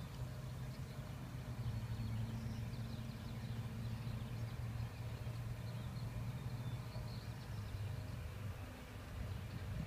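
Outdoor background: a steady low hum, with faint high chirps now and then.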